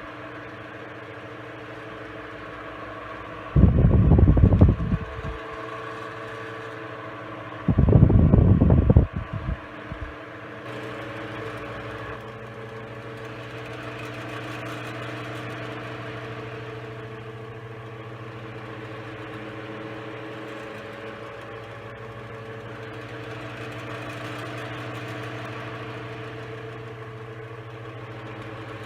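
Knapp-Monarch Jack Frost 12-inch oscillating table fan running steadily on high speed, with a steady motor hum and the whir of its blades. Two loud low bursts of a second or two each break in about four and eight seconds in.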